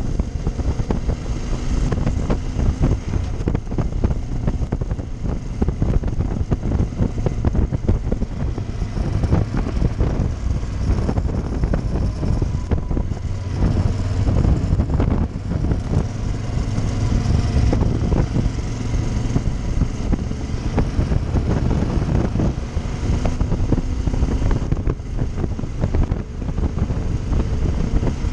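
Motorcycle engine running steadily at road speed, with wind buffeting the microphone.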